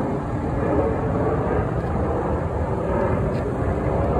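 Four Boeing F/A-18 Super Hornet jets flying in a diving diamond formation, their engines heard as a steady, distant jet noise.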